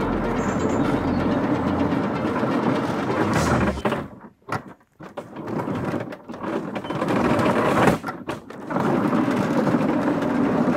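3D printed ride-on tank's electric drive and printed track links running as it moves over leaf litter. The noise cuts out twice, briefly about four seconds in and again around eight seconds, as the drive stops and starts.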